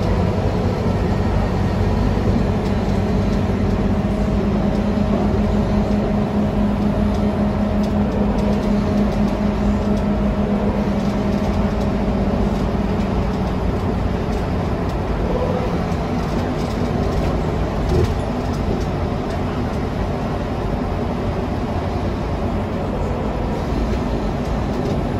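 Cabin noise of a Scania K320UA articulated bus under way, its rear-mounted diesel engine running with steady road rumble. The engine tone holds steady for about the first half, then fades into the rumble. A single knock comes about three-quarters of the way through.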